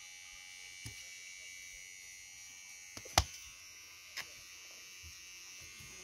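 Electric hair clippers buzzing steadily, with a few sharp clicks, the loudest about three seconds in.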